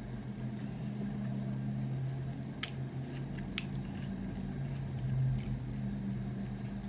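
A steady low hum, with two faint clicks a second apart near the middle, while a person eats shaved ice (bingsu) with a spoon.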